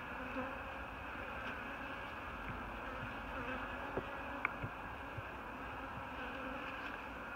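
Honeybees humming steadily from a cluster on an open hive's top bars, a low even drone with a few light clicks about halfway through.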